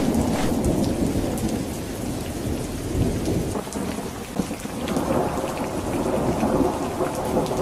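Thunderstorm: steady rain with thunder rumbling, the rumble swelling again about five seconds in.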